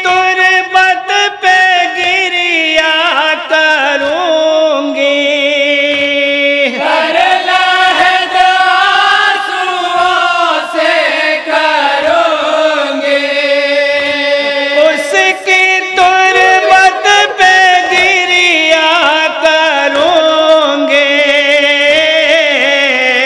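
Men's voices chanting a noha (Urdu mourning lament) together through a PA system, in long held, wavering lines. Sharp slaps of matam, hands beating on chests, come through now and then.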